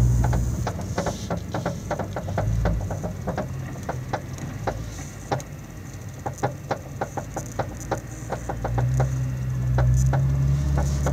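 Nissan GT-R front suspension clicking and creaking in a fast, uneven run, several clicks a second, heard inside the cabin over the low hum of the engine. The noise was not cured by new front adjustable control arm ball joints; the owner suspects the heim joints.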